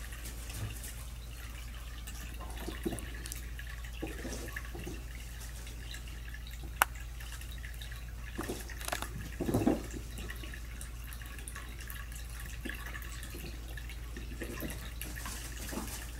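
Quiet room tone with a steady low hum, broken by scattered faint rustles and ticks. There is one sharp click about seven seconds in and a louder, brief rustle about nine and a half seconds in.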